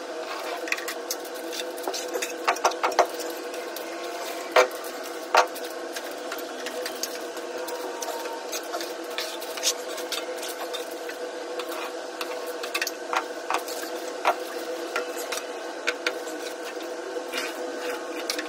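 A small motor humming steadily, with scattered sharp clicks and taps over it, two of them loud a little before the middle.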